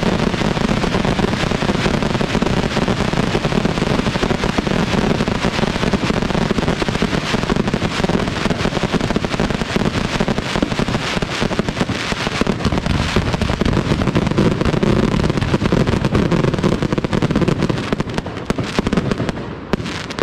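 Aerial fireworks barrage: a dense, continuous run of bangs and crackling with no gaps, thinning out in the last couple of seconds.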